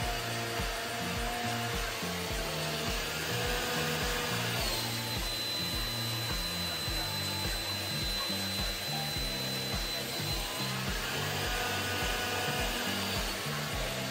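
Handheld hot-air dryer brush blowing steadily, under background music with a regular beat.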